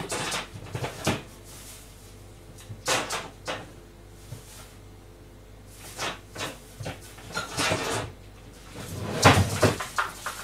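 Kitchen cupboard doors opening and closing amid scattered knocks and clatters, with the loudest cluster near the end.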